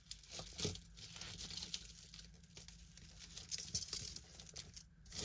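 Faint handling of small jewelry: scattered light clicks and clinks of metal pieces and chain, with rustling, as an owl pendant is worked free.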